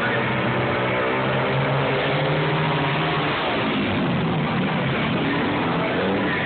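Single-cylinder flat-track racing motorcycles running hard on a dirt oval. Their engine note drops in pitch as the bikes go by, about four seconds in.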